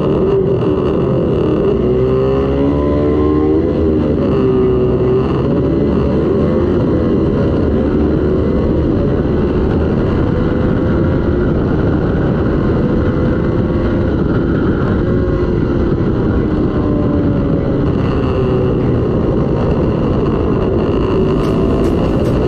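Several twin-cylinder racing motorcycles running at high revs, their engine notes rising and falling in pitch as they accelerate and shift.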